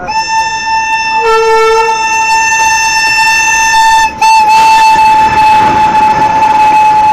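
Electric locomotive horn sounding one long blast as an oncoming express passes on the adjacent track. A lower second note joins briefly about a second in, and the horn breaks off for a moment about four seconds in before sounding again. The rushing rumble of the passing train builds under it in the second half.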